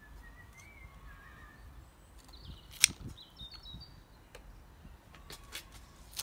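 Faint bird chirps, with one sharp click about three seconds in and a few lighter clicks near the end as scissors snip spring onion stalks.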